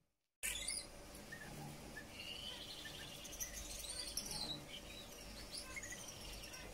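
Gouldian finch singing: a run of high chirps and gliding notes that starts suddenly about half a second in.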